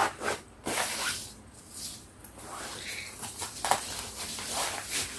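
Irregular rustling and soft handling noises of a fabric tote bag and the items packed in it being moved about.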